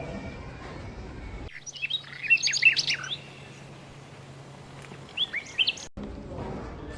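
Small bird chirping: a quick run of high chirps, then a shorter group a few seconds later, over a faint steady low hum.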